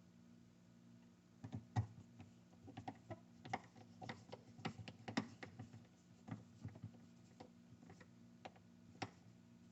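A screw being turned by hand into a refrigerator door hinge: faint, irregular small metallic clicks and ticks from the screwdriver and screw, starting about a second and a half in, over a faint steady low hum.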